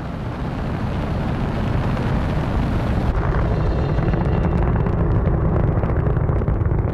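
Rocket engines rumbling during launch, as a film soundtrack: a loud, steady low rumble that builds over the first second or so, with light crackling from about halfway.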